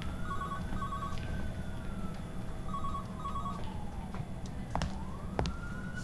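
A siren wailing, its pitch rising slowly, falling over several seconds, then rising again near the end. Over it a telephone rings twice in short double rings, with a low rumble underneath.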